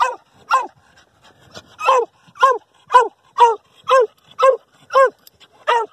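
Small hunting dog barking steadily from inside a burrow, about two barks a second, at an armadillo it has cornered underground.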